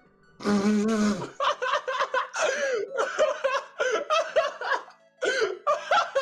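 A short buzzing fart sound about half a second in, followed by a person laughing in short bursts.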